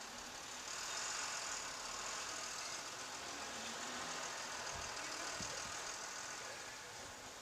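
A motor vehicle running in the street, its engine and road noise rising about a second in and easing off near the end.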